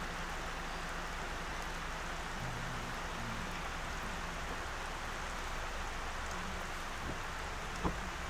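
Steady rain falling, an even hiss, with one short sharp tap near the end.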